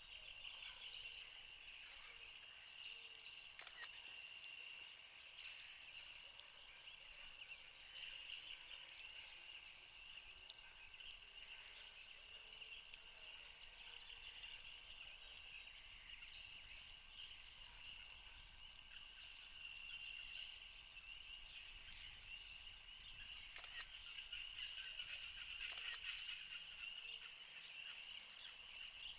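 Faint, steady chorus of distant frogs, a continuous high-pitched peeping, with a few soft clicks, once near the start and twice near the end.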